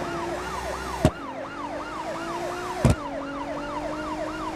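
Police siren in a fast yelp, its pitch sweeping up and down about three times a second over steady tones. Two sharp clicks stand out, about one and three seconds in.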